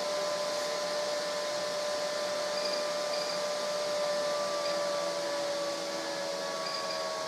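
Steady mechanical whir with a hum whose pitch sinks slightly over the seconds.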